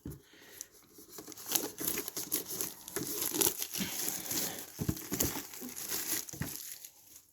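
Plastic packaging of a Pokémon card tin being crinkled and torn open in irregular crackling rustles.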